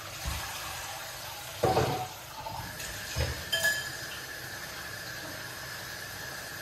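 Sliced peppers and onion frying in a stainless steel saucepan, a steady hiss, with a few knocks and clinks of kitchenware, the loudest about two seconds in. A thin steady high tone comes in about three seconds in.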